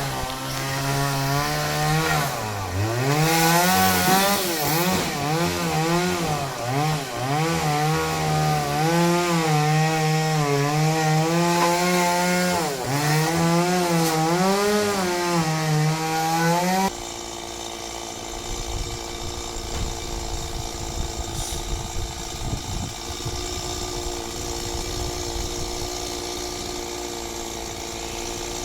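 Two-stroke Champion chainsaw running at high revs and cutting into a fan palm, its pitch dipping and recovering again and again under load. After about 17 seconds it changes suddenly to a quieter, steady drone.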